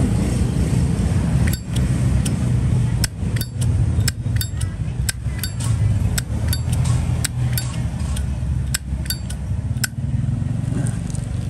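Metal lid of a used Zippo lighter clicking open and snapping shut again and again, a sharp click every half second to second. A steady low rumble runs underneath.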